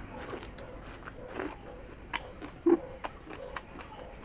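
Close-up chewing of a mouthful of rice and cooked mustard greens (lai saag): irregular wet smacks and short crunchy clicks, the loudest about two and a half seconds in.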